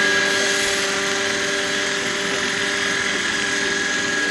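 Radio-controlled scale model helicopter hovering low: a steady high whine from its drive and rotors, with several held tones that do not change in pitch.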